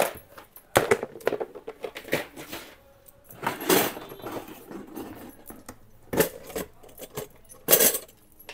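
Small metal jewellery charms jingling and rattling in clear plastic storage tubs as the tubs are handled and pulled from the shelves, with plastic knocking against plastic. The clatter comes in several separate bursts.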